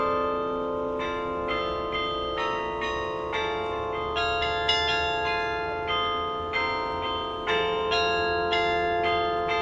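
Tower bells playing a melody, one struck note after another about every half second to a second, each note ringing on under the next.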